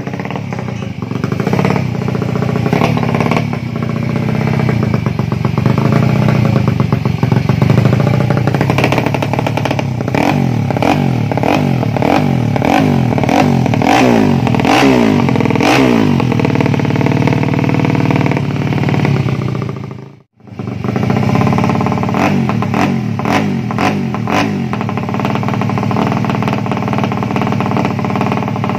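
A 130cc drag bike's single-cylinder engine running, revved in a run of quick blips through the middle, each rising and falling in pitch. The sound cuts out for an instant about two-thirds of the way through, then the engine carries on running.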